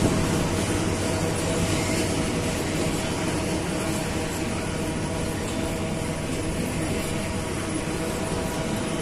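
Freight train wagons, boxcars and open cars, rolling past at speed: a steady rumble of steel wheels on the rails, with a faint steady hum running through it.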